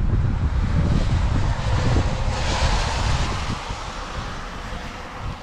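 Storm wind buffeting the microphone with a low rumble, and a rushing gust about two and a half seconds in; the rumble eases off over the last couple of seconds.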